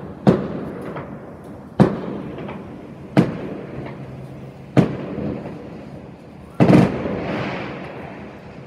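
Fireworks shells bursting overhead: five loud bangs about one to two seconds apart, each trailing off in an echo. The last, longer blast near the end fades into a crackle.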